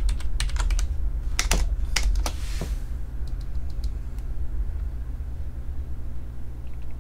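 Computer keyboard keys clicking in a quick run of keystrokes for about three seconds, then a few fainter clicks, over a steady low hum.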